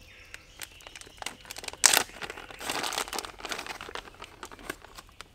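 Plastic bag of shredded cheese crinkling as it is handled, with a sharp, loud crackle a little under two seconds in and a dense stretch of crinkling just after.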